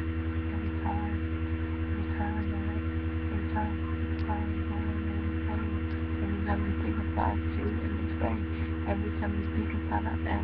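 Steady electrical mains hum in the recording, a low buzzing tone with several even pitches, with faint brief murmurs over it.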